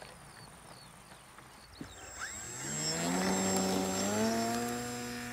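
Electric RC model plane's brushless outrunner motor and propeller spooling up about two seconds in, rising in pitch and then holding a steady drone with a high whine as the plane starts its takeoff roll. A few short bird chirps come before it.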